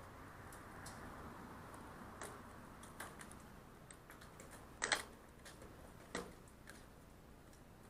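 Drone radio controller being handled and set into a hard plastic carrying case: scattered light plastic clicks and knocks, with a sharper click about five seconds in and another knock a second later.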